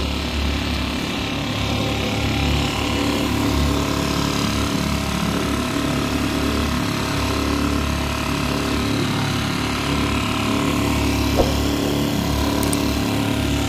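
Small Mercury four-stroke outboard motor running at a steady speed, pushing a kayak along, with the rush of water from its wake.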